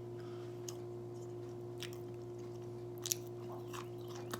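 Person chewing a sauce-dipped Cheetos-coated popcorn chicken nugget, with a few separate crisp crunches between quieter chewing.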